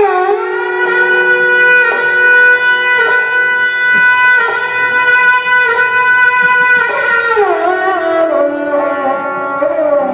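Sarangi bowed on one long, steady high note that enters suddenly, then stepping down in a descending phrase over the last few seconds.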